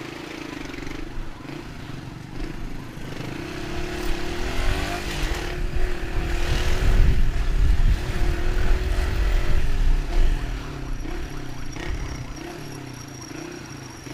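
Motorcycle engine running, rising in pitch and growing louder with a low rumble as it speeds up partway through, then settling back to a lower, pulsing run.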